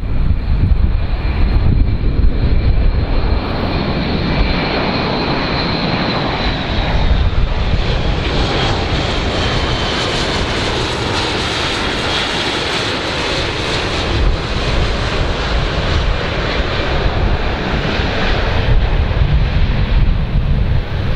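Airbus A400M turboprop transport flying low past: loud, steady engine and propeller noise, with a high whine that falls in pitch several seconds in as the aircraft passes.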